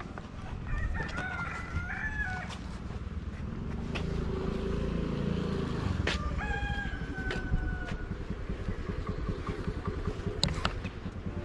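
A rooster crowing twice: a shorter, wavering crow about a second in and a longer crow at about six seconds, held and falling slightly at the end. A steady low rumble runs underneath.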